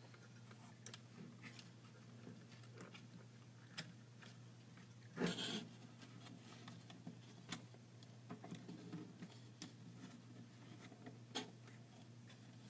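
Faint handling noises of small-parts assembly: scattered light clicks and taps as needle-nose pliers and switch wires are worked against laser-cut plywood, with one louder rustle about five seconds in. A steady low hum runs underneath.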